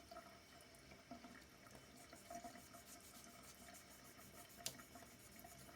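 Near silence: faint room tone with a low steady hum and one small click near the end.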